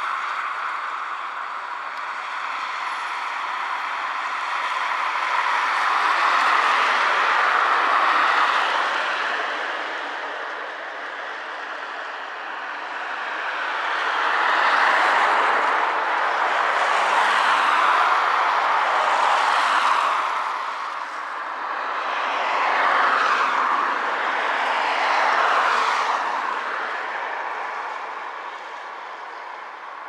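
Road traffic passing on a wet road: several cars go by one after another, each a swell of tyre hiss that rises and fades away.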